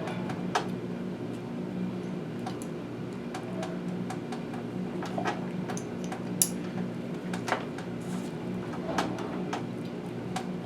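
Irregular metal clicks and taps of a wrench and stop bolt being tightened into a cast-iron master cylinder, about eight scattered clicks, over a steady low hum.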